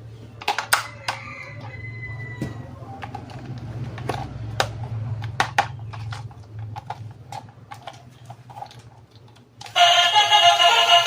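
Hard plastic toy parts and packaging clicking and tapping irregularly as they are handled, over a faint low hum. Near the end, loud music with electronic-sounding singing starts abruptly.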